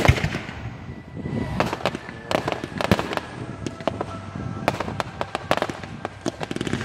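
Fireworks display going off close overhead: a rapid, irregular run of sharp bangs and crackling reports, the loudest right at the start.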